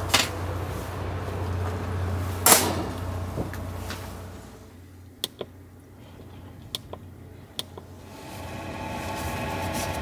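A steady low rumble, then a quieter stretch with several short, sharp clicks from a parking heater's control knob being pressed. Near the end a steady mechanical hum with several held tones comes up.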